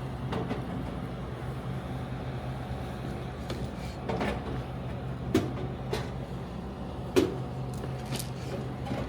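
Items being handled and loaded into a vending machine: scattered knocks and clunks, the sharpest about halfway through and a couple of seconds later, over a steady low hum.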